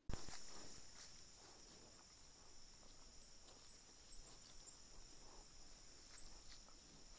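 Faint trail-camera recording with a steady high-pitched whine, over which come scattered soft rustles and crackles, fitting a brown bear's footsteps in the leaf litter of a forest track. The recording starts abruptly at the beginning.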